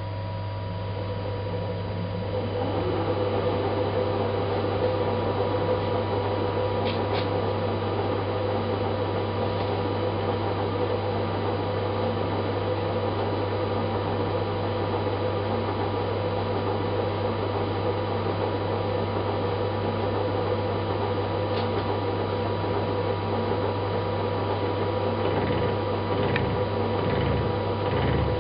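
Harrison milling machine running a gear hob to cut a timing pulley, with a steady motor hum under the noise of the spindle and the cut. The running noise builds over the first few seconds with a short rising whine, and near the end a low throb pulses about once a second.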